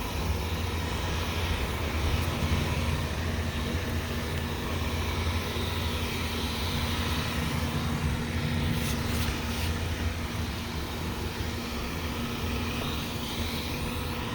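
Wyze robot vacuum running: a steady motor and suction hum with a held tone.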